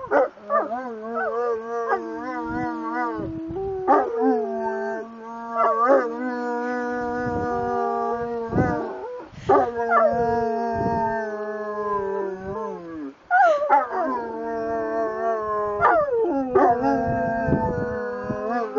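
Two Saint Bernards howling together in long, overlapping howls: one voice holds a low steady note while the other wavers higher, with brief breaks for breath.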